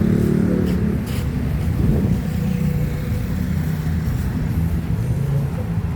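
Motor vehicle engines running nearby, a steady low drone of street traffic.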